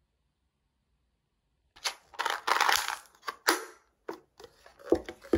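Crinkling and sharp plastic clicks as a two-compartment Biyott yogurt cup is opened and snapped, its topping side folded over to tip the crunchballs into the yogurt. The sounds start about two seconds in.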